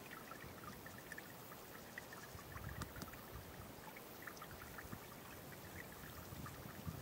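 Faint trickling of shallow water running in a narrow ditch, with a few soft low bumps now and then.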